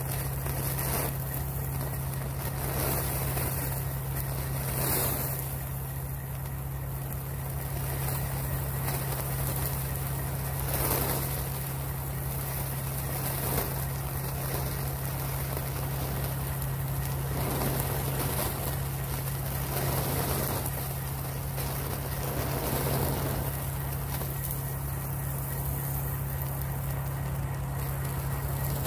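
Steady hiss of a small hydrogen-fuel jet flame burning at a brass nozzle, over a constant low hum. Brief swells in the hiss come every few seconds.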